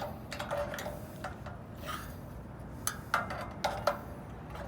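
Parts of a Paste Mate 62 wallpaper pasting machine being handled and fitted together: a loose series of light clicks and knocks, a few of them a little louder about three seconds in.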